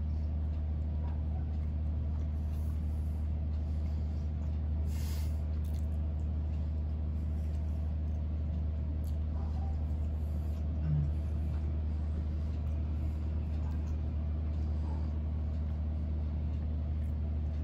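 Quiet chewing of soft cake, with a few faint clicks and rustles as pieces are bitten and picked up from the plate. A steady low hum lies under it and is the loudest sound.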